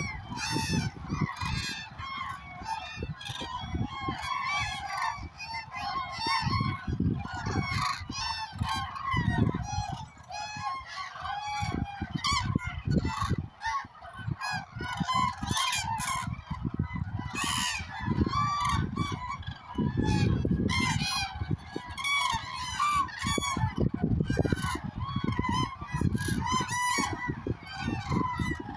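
A large flock of common cranes calling: many loud, trumpeting calls overlapping continuously, with irregular low rumbles underneath.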